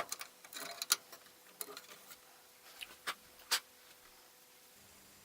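A few sharp clicks and light clatter of computer hardware being handled as expansion cards and their metal brackets are taken out of a PC case, with soft handling rustle in between.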